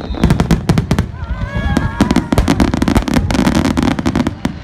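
Fireworks going off, many sharp bangs and cracks in quick succession.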